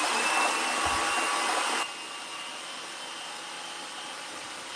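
Electric stand mixer running at speed, its whisk beating egg whites for meringue: a steady motor whine over a whirring hiss. It drops noticeably in level about two seconds in, then runs on steadily.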